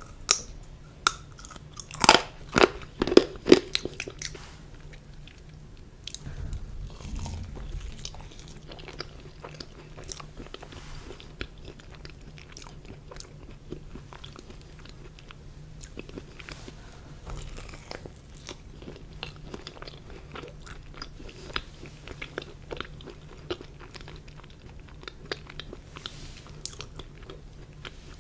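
Close-miked eating sounds: several sharp, crunchy bites about two to four seconds in, followed by steady chewing.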